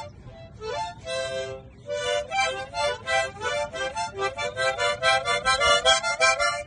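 Harmonica blown by a chimpanzee: a short phrase, then a fast run of short, choppy notes, several a second, with a few notes bent in pitch.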